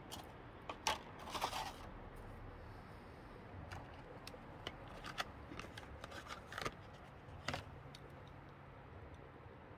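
Quiet, scattered small clicks and light handling knocks, about eight of them, over a low steady hum.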